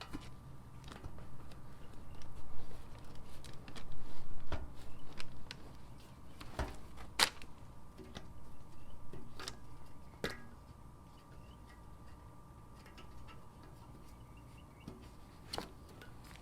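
Scattered clicks and knocks of the truck seat cushion being pried off the retaining clips on its seat frame, busiest in the first few seconds, then a few single sharp clicks that thin out.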